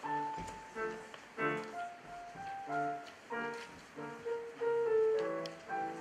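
Digital piano played with both hands: a melody of short notes over chords and bass notes, struck two to three times a second.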